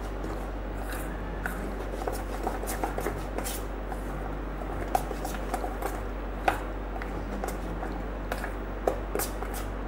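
Metal spoon stirring a thick mango and semolina batter in a steel bowl, with scattered light clicks of the spoon against the bowl over a steady low hum.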